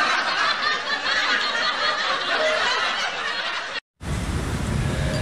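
Laughter sound effect, snickering and chuckling, that cuts off abruptly a little before the end. Faint outdoor background noise follows.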